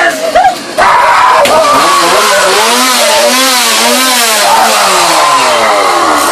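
Chainsaw engine revving, its pitch rising and falling over and over after a brief pause about a second in.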